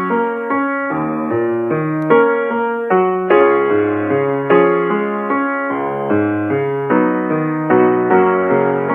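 Piano playing a steady succession of notes and chords, a new one struck about every half second.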